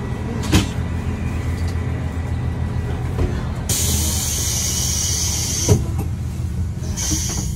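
KiHa 283 series diesel railcar standing with a steady low engine rumble. A loud hiss of compressed air sets in about halfway through and lasts about two seconds, then comes again briefly near the end, with two sharp clunks, one near the start and one just before six seconds in.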